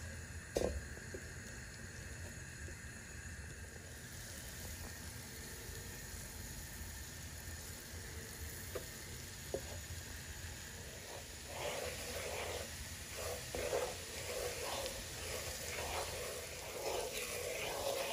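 Flour and butter sizzling in a pan as a roux is stirred with a wooden spoon, with a few light knocks of the spoon in the first half. About two-thirds of the way in, the sizzle turns louder and crackly as the mixture foams and bubbles.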